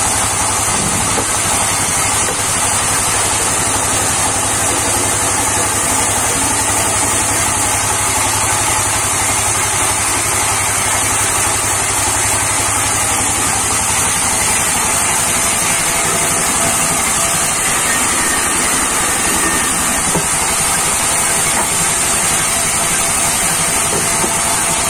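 Sawmill band saw running and cutting through round logs, a steady machine hum with a constant high hiss.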